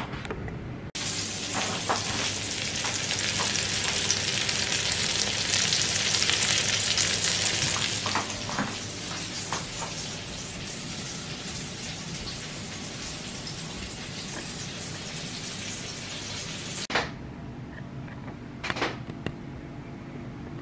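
Food frying in hot fat: a steady sizzle that starts suddenly, swells, then eases, and cuts off sharply near the end. A few light clicks sound over it.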